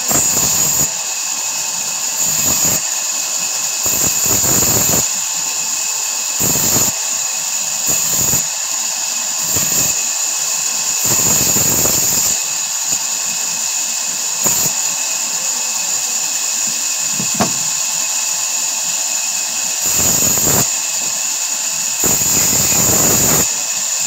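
Large vertical band saw running with a steady high-pitched hum, its blade cutting through a block of raw wood in about ten short passes, each a louder rasp lasting a second or so.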